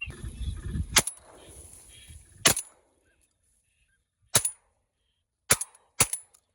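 Shotgun blasts during a duck hunt: five sharp shots at uneven intervals, the last two about half a second apart.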